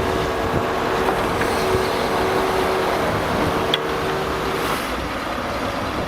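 Engine of a piece of heavy machinery running steadily, a constant hum under a rushing noise.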